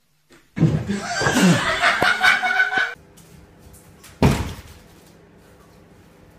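People laughing loudly for about two and a half seconds, then one sharp thud about four seconds in as a cat runs headlong into a closed glass sliding door.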